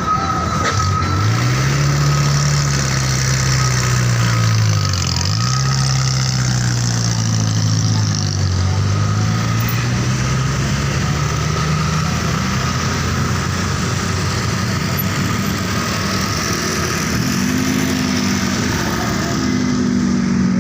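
Bus diesel engine running, its speed rising and falling, with a sharp dip about five seconds in. A thin high steady whine stops about a second in.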